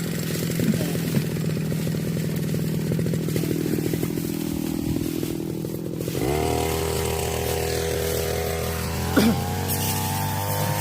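Small two-stroke brush cutter engine running. About six seconds in, its pitch glides up quickly and it settles into steady, faster running, with a brief knock near the end.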